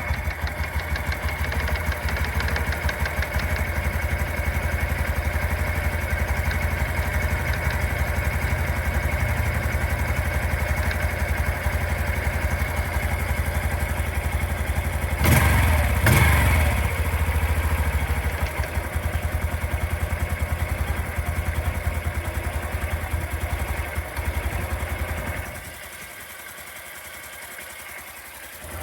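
Honda Super Cub C125's single-cylinder engine idling with a 'kata-kata-kata' rattle, the abnormal noise the owner reports whenever the engine has not just been ridden. About fifteen seconds in, the throttle is blipped twice and the revs fall back to idle. The engine stops about 25 seconds in.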